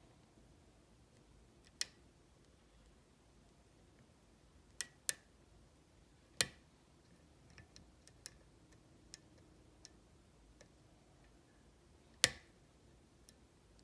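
Sharp metal clicks from a pick and tension tool working the keyway of a Kwikset SmartKey lock. About five loud clicks come at irregular intervals, the loudest near the end, with fainter ticks between them.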